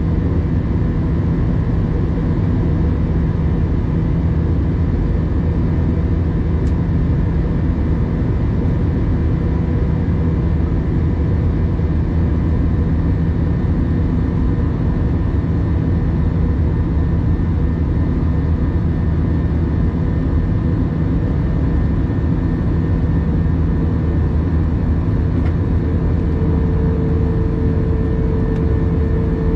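Jet airliner cruising, heard from inside the cabin: a steady, unchanging drone of the engines and rushing air, heaviest in the low end. A steady higher hum joins near the end.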